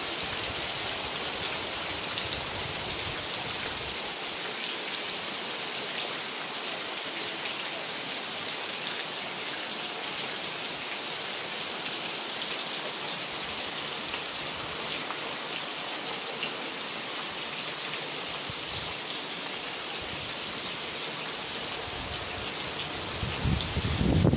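Heavy rain falling steadily on grass and trees, an even hiss. Near the end a low rumble comes in under the rain.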